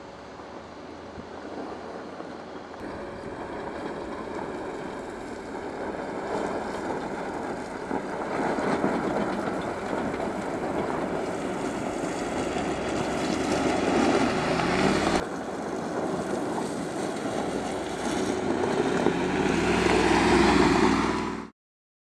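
2019 Mercedes-Benz G-Class driving on a steep slope of loose gravel: engine running and tyres on stones, growing steadily louder with a brief dip about 15 seconds in. Near the end the engine note rises, then the sound cuts off abruptly.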